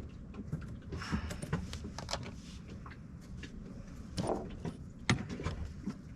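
Scattered clicks, knocks and short rustles of hands handling the old greasy steering-pedestal shift cable and its metal hardware.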